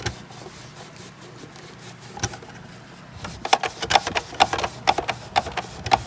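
Sharp clicks and light knocks from handling a thermal printer during print-head cleaning: a few single ones, then a quicker run of about two a second in the second half, over a faint steady hum.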